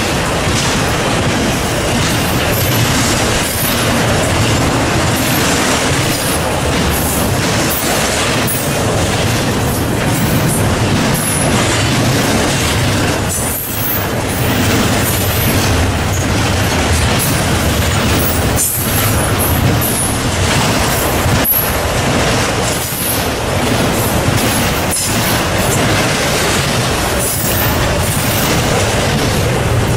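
Double-stack intermodal freight train rolling past close by: a loud, steady rumble and rattle of steel wheels on rail, with a few short dips in the noise.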